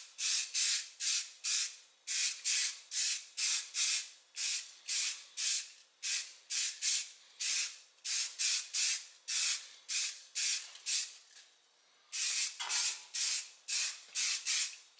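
Aerosol can of primer spraying in short hissing spurts, about two a second, with a brief pause about eleven seconds in. This is a first, light coat of primer going onto small steel parts.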